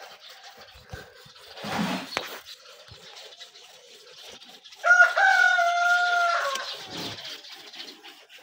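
A rooster crows once, about five seconds in: one long, level call lasting under two seconds that drops in pitch at the end. A short rasping noise comes about two seconds in.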